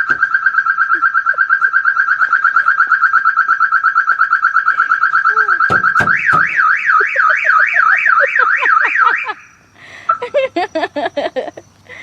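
Car alarm sounding, cycling through its tones: a fast-pulsing steady tone for about six seconds, then a rising-and-falling wail for about three seconds. A short run of rapid chirps follows near the end.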